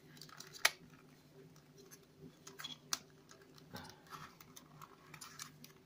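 3D puzzle model pieces being handled and pressed together: scattered faint clicks and taps, the sharpest about half a second in and another near three seconds, over a faint steady hum.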